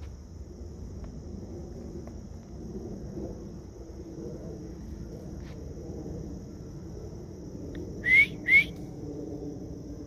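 Steady high-pitched insect drone in leafy woodland. About eight seconds in come two loud, short, rising whistles about half a second apart.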